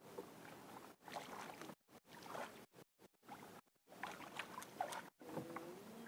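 Faint splashing and swishing of a wooden paddle stroking through calm sea water beside a small outrigger canoe, in repeated strokes about once a second.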